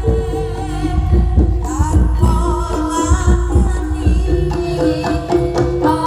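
Javanese live ensemble music. Kendang hand drums play a dense, busy rhythm under held melodic tones, and a voice sings a wavering line about two seconds in.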